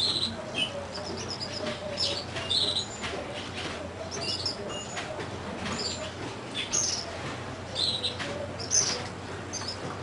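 Caged northern cardinal giving short, high chip notes scattered irregularly, with its wings fluttering as it moves about the cage.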